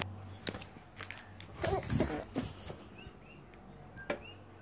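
Handling noise: a run of sharp clicks and rustles, busiest in the middle, with a few faint short chirps about three seconds in.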